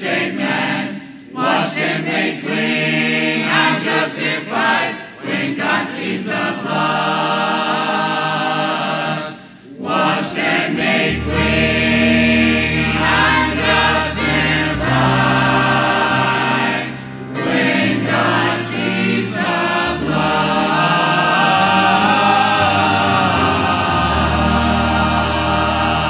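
Church choir singing a hymn in full voice. Low sustained bass notes join about eleven seconds in, under the held chords.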